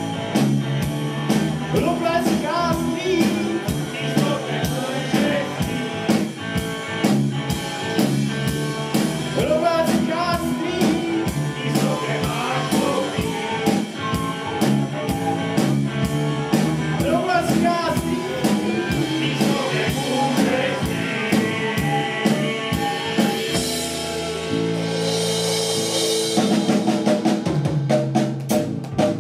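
Male vocal group singing a rock song live over keyboard and a steady drum beat, with a flute joining in the second half. The song ends on a long held chord and stops abruptly near the end.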